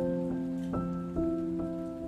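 Soft background music: held keyboard-like chords, with new notes entering about every half second, slowly fading.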